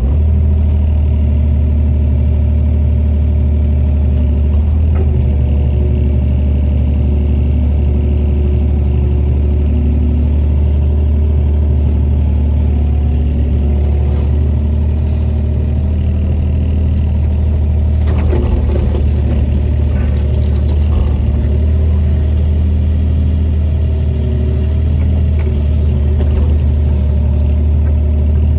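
Wacker Neuson EZ 38 mini excavator's diesel engine running steadily, with a few seconds of knocking and clatter about eighteen seconds in.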